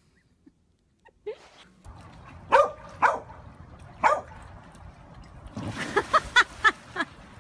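Large black dog barking, three single barks spaced about half a second to a second apart, then a splash of water followed by a quick string of short calls.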